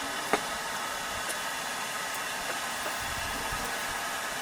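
Steady rushing of a river's flowing water, with one sharp click about a third of a second in.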